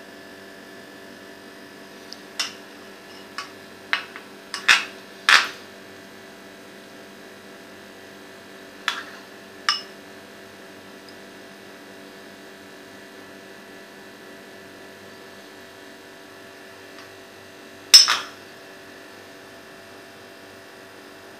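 A spoon clinking against a bowl and plate while caramel sauce is spooned over an ice cream cake: about nine short, sharp clinks, most of them in the first six seconds and the loudest about eighteen seconds in, over a steady hum.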